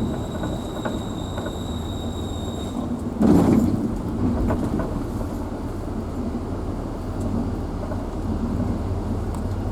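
Steady rumble of a vehicle being driven on a forest road, heard from inside the cabin, with a louder thump or jolt about three seconds in. A faint high whine runs through the first three seconds.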